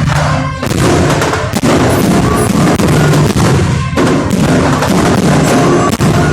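A fireworks salute: a rapid series of loud bangs from bursting shells, over music that plays the whole time.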